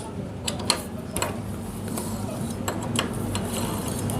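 Irregular metal clicks and clinks of a spanner working the small bolts of a motorcycle's cam sprocket as they are undone, over a steady low hum.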